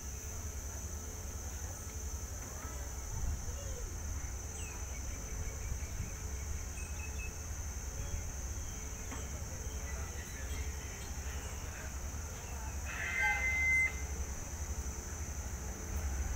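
Low steady rumble of a diesel locomotive, with a steady high insect drone over it. About thirteen seconds in there is a brief bird call, and near the end the rumble grows as the train draws closer.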